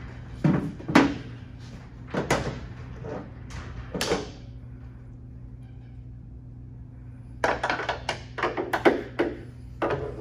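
Sharp knocks and clicks of metal parts and tools being handled while a gas hood strut is fitted: a few single knocks spread over the first four seconds, then a quick run of them near the end. A steady low hum runs underneath.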